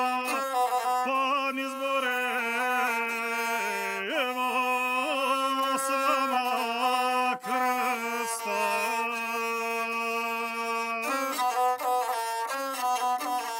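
Gusle, the single-stringed bowed Balkan folk fiddle, played solo between sung verses of an epic song. It plays a continuous ornamented melody with quick slides over a held low note.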